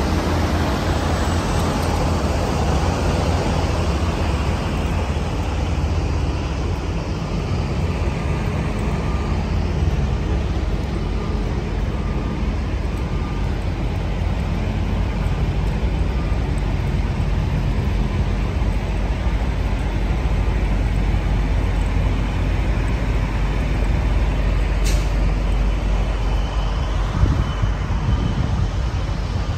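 Steady low rumble of diesel semi-truck engines idling and running, with one sharp click about 25 seconds in.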